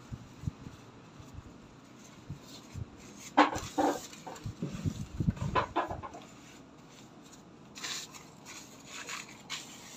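A chicken clucking in a few short calls around the middle, with paper tissue rubbing over skin near the end.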